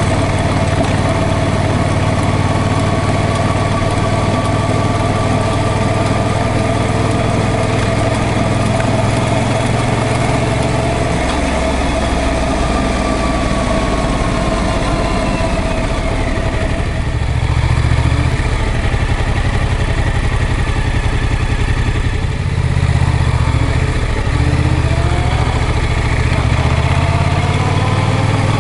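Yamaha MT-07's parallel-twin engine running at low road speed, its note changing several times as the revs drop and pick up again, with a few short rises in pitch about three quarters of the way through.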